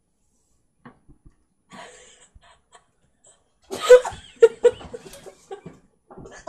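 Coughing fit from a dry spoonful of ground cinnamon: one loud, sudden cough about four seconds in, then a quick run of shorter coughs.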